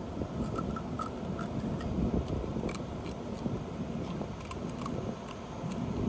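Small scissors snipping and crunching through a sea urchin's shell around its mouth: a scattered series of faint clicks. Under them runs a steady low wind rumble.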